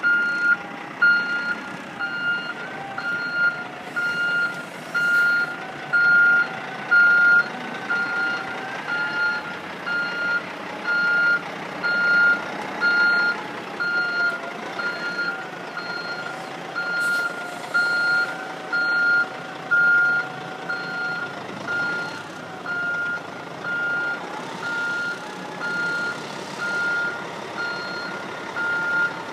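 Truck backup alarm beeping steadily, about once a second, as the 1994 Kenworth W900 dump truck reverses. The mechanical diesel engine runs underneath with a faint whine that wavers in pitch.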